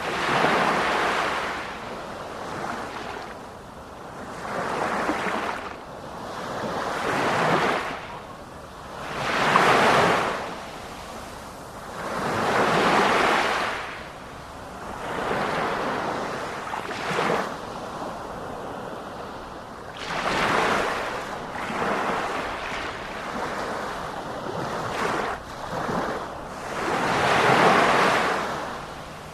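Sea waves breaking and washing up the shore in repeated swells, one every two to three seconds.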